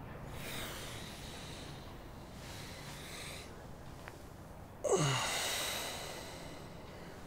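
A person breathing: two soft breaths, then about five seconds in a sudden loud voiced exhale that falls steeply in pitch and dies away over about a second.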